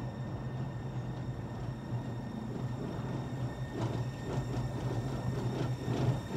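Bayerische Zugspitzbahn rack-railway train running with a steady low hum. About two-thirds in, a rhythmic clatter of about three knocks a second sets in and grows louder.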